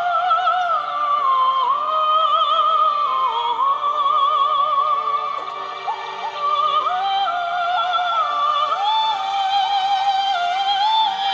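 Song passage with a high, wordless, opera-like vocal line: long held notes with vibrato over soft, steady accompaniment, with a short lull about six seconds in.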